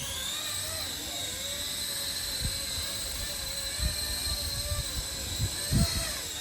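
Electric motors of a 3D-printed RC helicopter running steadily with a high whine, with a lower tone that wavers a little as the rotors work. A few dull low thumps come through, the strongest about four and six seconds in.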